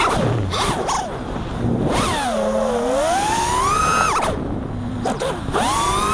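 A 5-inch FPV freestyle quadcopter's brushless motors and propellers whining, the pitch rising and falling sharply with the throttle. There are a few quick throttle chops, then a long dip and climb to a high whine that cuts back abruptly just past four seconds in, before it climbs again near the end.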